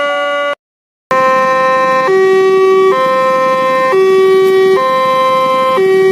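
Railway level-crossing alarm sounding its low-pitched two-tone warning: a higher and a lower note alternate, each held just under a second, signalling that a train is about to pass. Road traffic runs underneath, and the alarm starts after a short silent gap about a second in.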